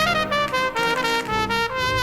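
Brass band music with a trumpet playing the lead line over a steady beat.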